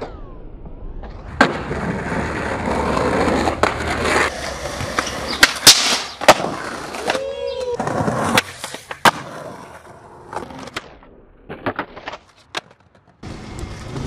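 Skateboard wheels rolling over pavement, building to a steady roar in the first few seconds. Sharp clacks of the board popping and landing break in repeatedly through the middle and again in a quick scatter near the end.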